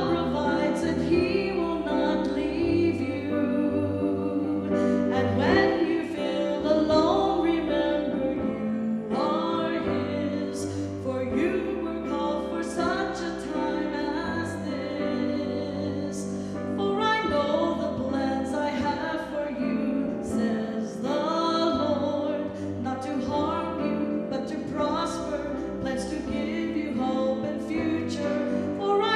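A woman singing a slow Christian solo into a microphone, accompanied by grand piano.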